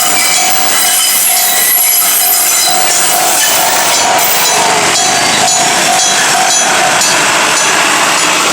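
Railway level-crossing alarm, a mechanical electric bell and a speaker's electronic tone sounding together, while an Enoden electric train passes over the crossing. The pulsing electronic tone stops about seven seconds in.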